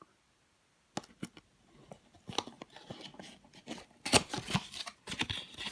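Handling noise of a taped cardboard blind box being cut and torn open: a run of sharp clicks, snips and crackles, loudest about four to five seconds in.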